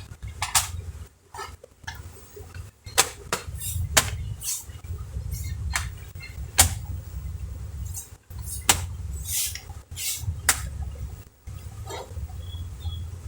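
Irregular sharp clicks, taps and a few short scrapes as a laptop's plastic case parts and screws are handled and fitted, over a steady low hum.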